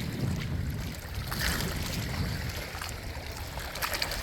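Steady outdoor wind and water noise, a low rumble, with a couple of faint ticks.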